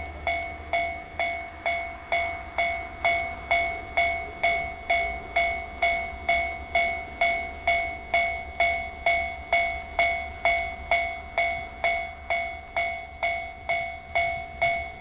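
Japanese railway level crossing warning bell sounding its steady 'kan-kan' alarm, about three two-pitched strikes a second, each ringing and decaying before the next.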